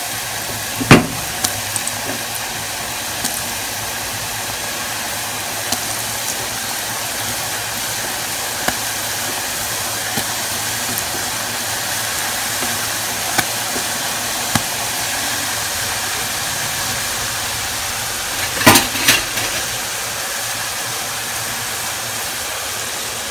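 Tortilla wedges deep-frying in hot oil in a small saucepan: a steady sizzling hiss with scattered small pops. There are sharper knocks about a second in and again around nineteen seconds in.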